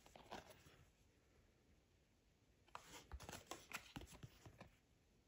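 Faint rustling and light clicks of board-game cards being handled and slid against one another: a little at the start, then a longer spell of about two seconds in the middle.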